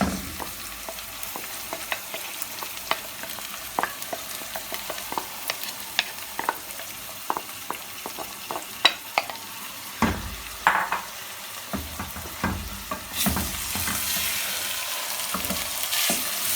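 Minced beef frying in oil with onions in a pot, sizzling while a spoon stirs it, with many short scrapes and clicks of the spoon against the pot. The sizzle grows louder near the end.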